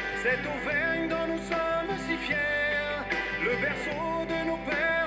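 Background music: an instrumental passage of a French chanson, a melody line over a steady accompaniment, between sung verses.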